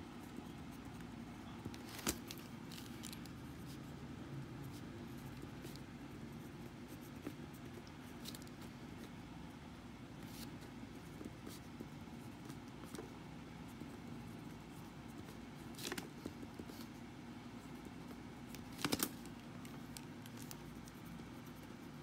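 Pen scratching across paper as equations are written out by hand, over a faint steady background hum, with a few sharp taps about two seconds in, around sixteen seconds and twice near nineteen seconds.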